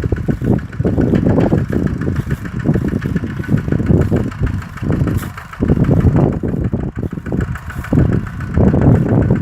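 Kubota RT-120 single-cylinder diesel engine running as it pulls a plough through a rice field, its level dipping and swelling every second or two.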